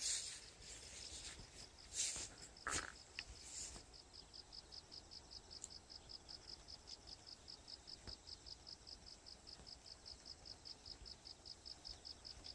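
An insect chirping in an even, rapid pulse of high chirps, about five a second. A few louder rustling noises sound over it in the first few seconds.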